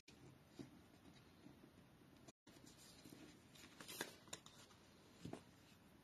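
Near silence with faint rustles and light taps of paper card stock being handled, the loudest about four seconds in.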